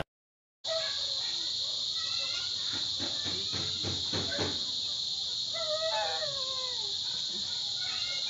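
Steady high-pitched chirring of insects, with a short whining call that falls in pitch about six seconds in.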